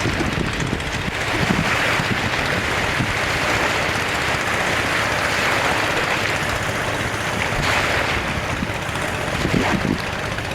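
Waves washing on the shore, swelling and easing in a steady hiss, over the constant low rumble of an idling engine.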